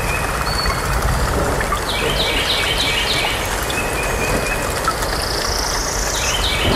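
Steady low rumble of outdoor background noise with a bird chirping: a quick run of short falling chirps about two seconds in.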